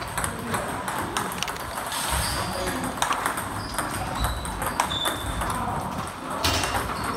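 Table tennis balls striking paddles and tables at several tables at once: an irregular patter of sharp clicks, some ringing briefly as high pings.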